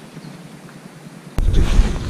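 Faint outdoor hiss, then about one and a half seconds in a sharp click followed by wind buffeting the microphone with a low rumble.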